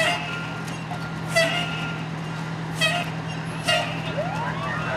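Fire engine running with a steady low hum, four short sharp bursts about a second apart, and about four seconds in a siren starting to wind up, rising in pitch and then holding.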